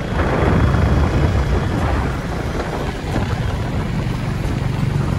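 Wind rumbling on the microphone over a motorcycle engine running while riding.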